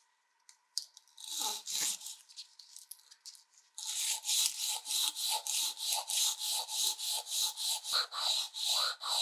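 Hand sanding of an old wrench's weathered wooden handle with sandpaper wrapped around a wooden block, rubbed back and forth. A couple of strokes come about a second in, then steady, even strokes at about three a second from about four seconds in.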